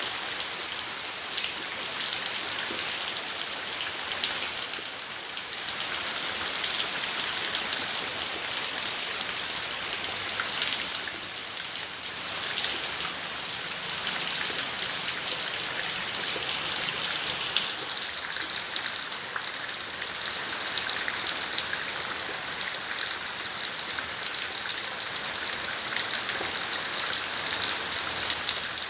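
Steady rain falling, a dense patter of drops hitting the ground and leaves.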